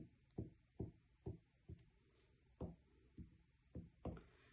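Faint, soft low thuds, about two a second at first and then more spaced out, with a couple closer together near the end.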